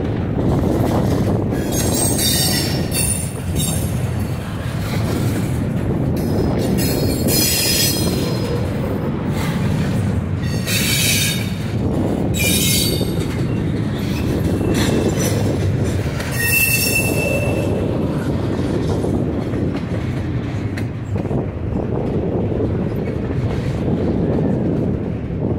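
Double-stack intermodal train's well cars rolling past with a steady rumble of wheels on rail. High-pitched wheel squeal comes and goes about five times, mostly in the first two-thirds.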